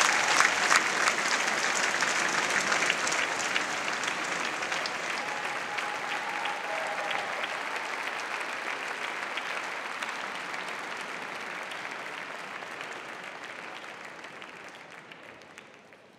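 Audience applauding, a dense patter of many hands clapping that fades out gradually to near silence.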